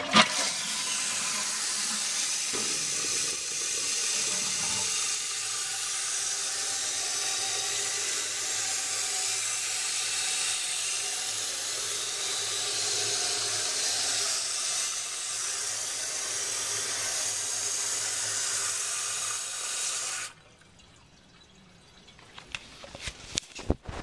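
A 2000 Toto Carusoe toilet flushing and refilling: a steady rush and hiss of water through the tank that stops abruptly about twenty seconds in as the fill valve shuts off. A few faint clicks follow near the end.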